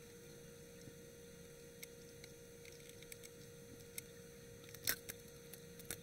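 Faint handling sounds from hands working on a TEAC X-1000R reel-to-reel's front panel: a few small clicks and taps, the loudest a sharp click about five seconds in, over a steady hum.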